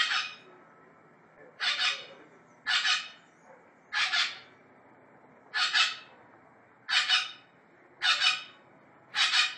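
Red-lored amazon parrot calling over and over: eight short, harsh calls about a second apart, several of them with a double note.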